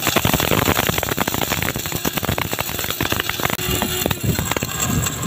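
Small electric mini spice grinder running, with whole garam masala spices (cloves, nutmeg, cinnamon, mace, black cardamom) rattling against the spinning blades as they are ground fine; a dense, continuous rattle that stops at the very end.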